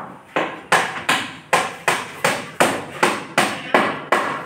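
Rapid, evenly spaced knocks, about three a second, each one sharp and fading quickly.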